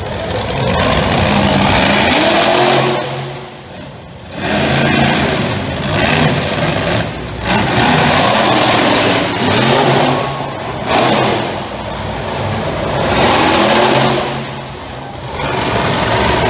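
Monster truck engine revving hard in repeated surges, its pitch climbing and falling away again, with brief lulls between runs.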